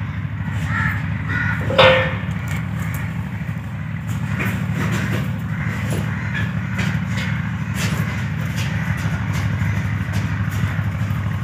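An engine idling steadily with a low, rapid throb, mixed with scattered light clicks. A short, sharp pitched call rises over it about two seconds in.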